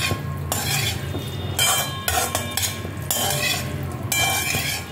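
A metal spatula stirring and scraping chopped okra as it fries in a metal kadai, in repeated strokes about once a second, over a steady low hum.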